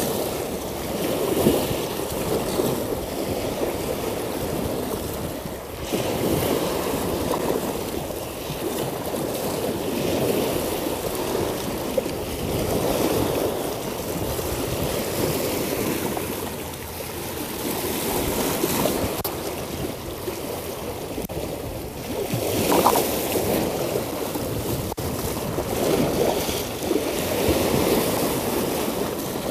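Sea waves washing up over rocks and draining back, swelling every few seconds.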